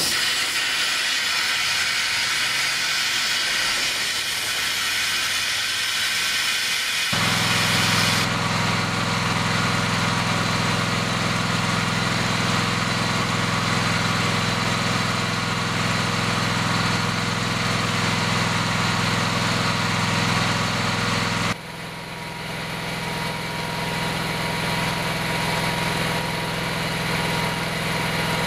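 Cavity wall insulation being injected: a steady loud hiss of beads and air rushing through the hose into the wall. About seven seconds in it gives way to the steady hum of the injection rig's engine with the hiss under it, and after about twenty seconds the rig's hum carries on more quietly.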